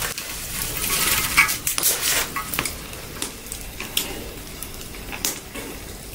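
Dried noodles dropped into a wok of boiling water, then wooden chopsticks stirring them, with scattered clicks and knocks of the chopsticks against the wok.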